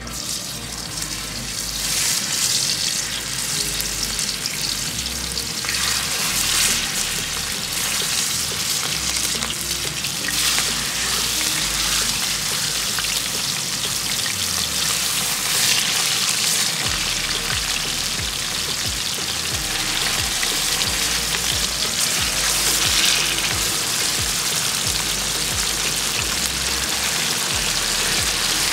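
Raw chicken breasts sizzling as they fry in hot fat in a wide black pan. The sizzle swells several times as more pieces are laid in and pressed down.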